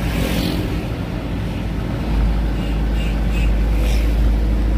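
Truck engine heard from inside the cab while driving, a steady low rumble that grows louder about two seconds in. A few short higher-pitched sounds come over it near the end.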